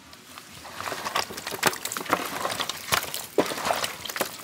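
Irregular wet squelching and slapping of curd being worked by hand into a large batch of quail for a biryani marinade, starting about a second in.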